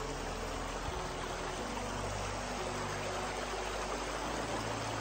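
Small rocky woodland river running over stones: a steady rush of water.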